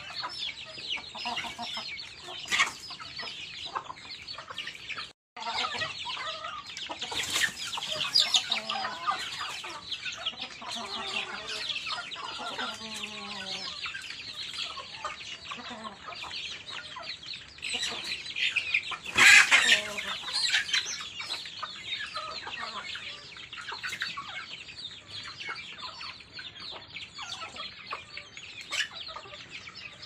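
A flock of chickens feeding, clucking and chirping all through over many short pecking clicks. A loud flurry comes about two-thirds of the way in, and the sound drops out for a moment about five seconds in.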